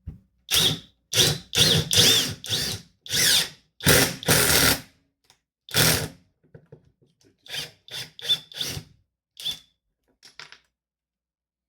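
Parkside Performance 20V cordless power tool run in short trigger bursts: about a dozen quick spin-ups, each with a motor whine that rises and falls. After about six seconds the bursts come sparser and fainter.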